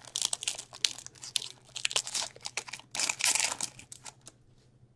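Trading-card pack wrapper being torn open and crinkled by hand: a dense run of sharp crackles and rustles that dies away about four seconds in.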